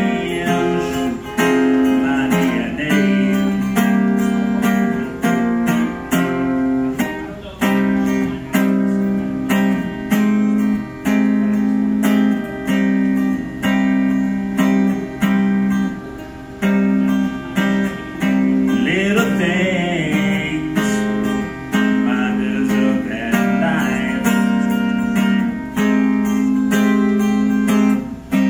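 Acoustic guitar strummed in a steady rhythm, with a man's voice singing a few phrases over it in a live performance.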